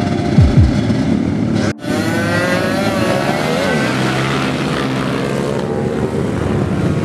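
Several racing motorcycle engines revving hard at high pitch, their notes climbing as they accelerate, with a brief break about two seconds in.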